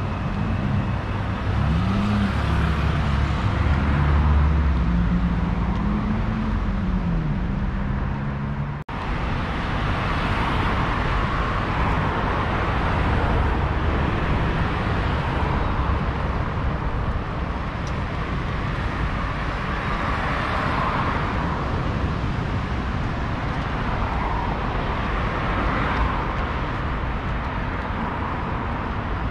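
Street traffic. For the first several seconds a vehicle engine's pitch rises and falls several times as it speeds up and slows. After a brief dropout about nine seconds in, the traffic noise runs on steadily, swelling as cars pass.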